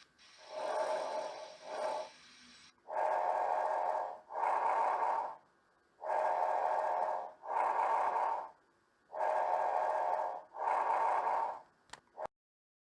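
Recorded abnormal lung breath sounds: breaths in and out in pairs, a pair about every three seconds, softer for the first two seconds, the recording cutting off suddenly near the end.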